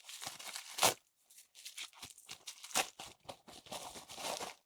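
A small plastic bag crinkling and rustling as it is handled and opened, in irregular crackling bursts.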